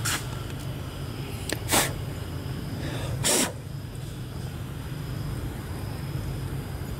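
A baby macaque drinking from a juice box, with two short hissy bursts about a second and a half apart, the second longer, over a steady low hum.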